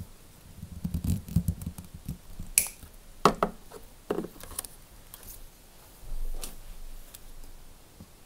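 Side cutters snipping at a hose clamp on a dishwasher's heating-element hose: a few sharp clicks and snaps, the loudest about three seconds in, with rustling handling noise between them.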